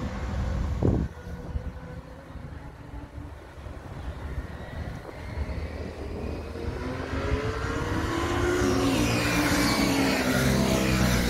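Motorcycles lapping a race circuit: engines heard at a distance, then one motorcycle's engine grows steadily louder from about seven seconds in as it approaches and passes close by.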